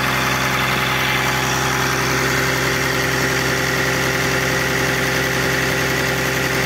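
Engine running steadily at an unchanging speed, heard up close in the engine bay next to the cooling fan and the air-conditioning compressor.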